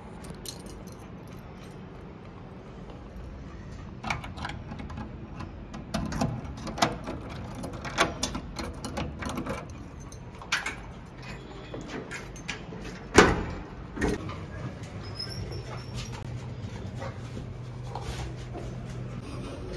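Keys jangling, with a string of clicks and knocks as a door is shut and locked with a key, the loudest a single sharp knock about two-thirds of the way through. After it a steady low hum sets in, the hum of a lift car running.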